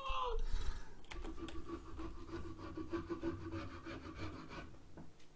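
A metal-tipped hand tool scratching and scraping across a wooden shield board in faint, scratchy strokes. A low steady hum sits under it for a couple of seconds.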